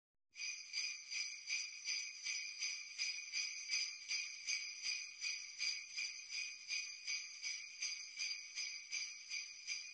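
Jingle bells shaken in a steady rhythm, about two and a half shakes a second, coming in a moment after the start.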